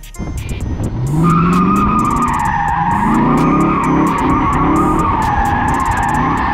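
A car drifting, heard from on board: from about a second in, its tyres squeal steadily and high while the engine revs rise and drop again and again.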